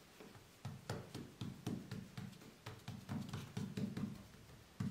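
Fingertips pressing dimples into a long strip of soft pide dough on a floured wooden board: a quick series of soft, dull thuds, about four a second, starting under a second in.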